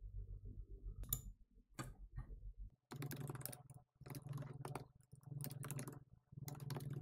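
Computer keyboard typing in four quick bursts, starting about three seconds in, as a command is typed. Before that there are two or three single clicks over a low, even pulsing.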